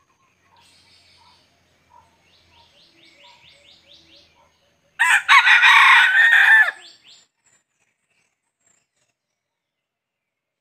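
Red junglefowl rooster crowing once, a loud crow about two seconds long just past the middle. Before it come soft low clucks and a quick run of faint chirps.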